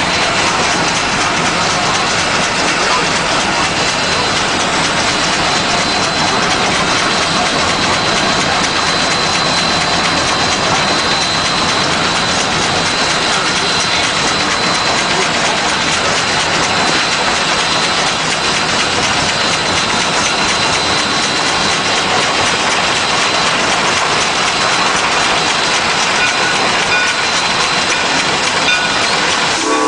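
Cab noise of a Shay geared steam locomotive under way: a loud, steady mix of steam hiss and running clatter, with a thin high whine through the first half.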